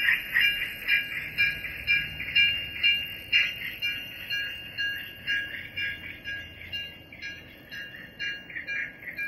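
Model steam locomotive's sound system chuffing in an even rhythm, about four chuffs a second at first and slowing to about three, gradually fading.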